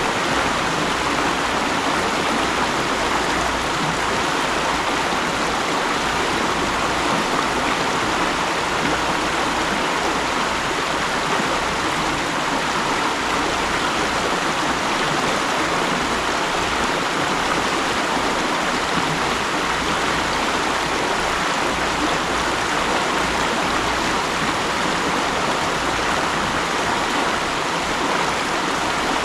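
Mountain stream rushing over rocks, a steady, even flow of water with no changes.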